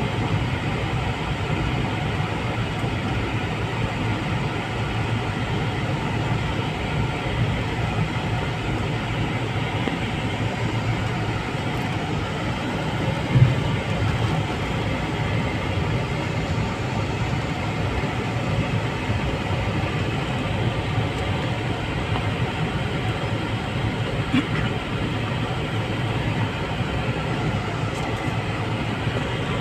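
Steady low rumble of a vehicle's engine and tyres, heard from inside the cabin as it drives slowly. There is a single thump about 13 seconds in.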